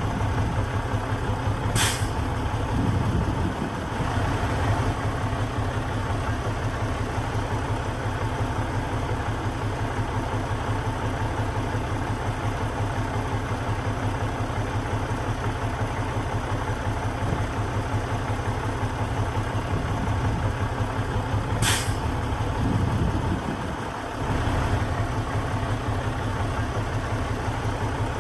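Heavy diesel engine of construction machinery running steadily with a fast low throb. Two short, sharp hisses of released air come about twenty seconds apart, each followed by a brief change in the engine note.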